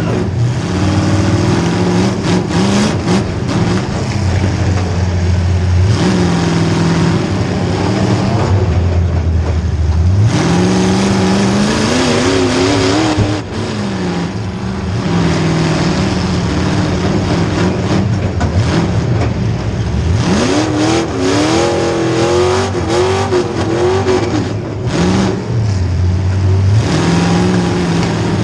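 Demolition derby car's small-block Chevy V8 engine revving hard and falling back again and again, climbing to high revs about ten seconds in and again about twenty seconds in, with scattered knocks.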